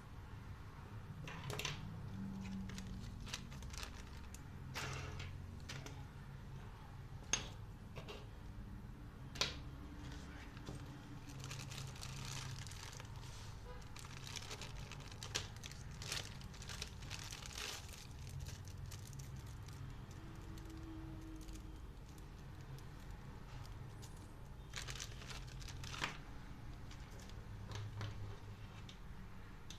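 Plastic packaging crinkling and rustling as accessories are handled and unwrapped, with scattered sharp clicks of small parts.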